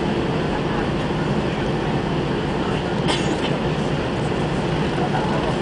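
Airbus A320 cabin noise while taxiing: a steady hum of the jet engines and air conditioning with the rumble of the aircraft rolling on the taxiway. A brief click sounds about three seconds in.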